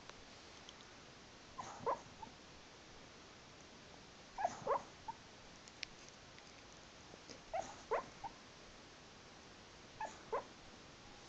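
A sleeping dog talking in his sleep while dreaming: four short clusters of soft whimpers and yips, a few seconds apart.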